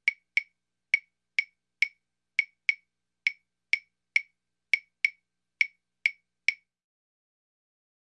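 A wood block struck in a Chinese opera percussion pattern: sharp, identical clacks about two a second, some falling in quick pairs, stopping about six and a half seconds in.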